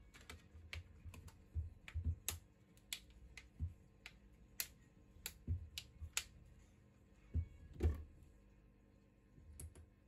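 Plastic back cover of a Xiaomi Redmi 9T snapping onto the phone's frame as it is pressed down by hand: a dozen or so sharp, irregularly spaced clicks as its clips catch. Two dull knocks about three quarters of the way through are the loudest sounds.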